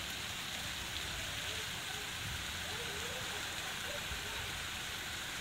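Steady even hiss of outdoor street ambience, with faint voices in the distance.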